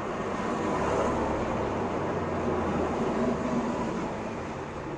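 Steady road and tyre noise from a moving car, picked up by its dashcam inside the cabin.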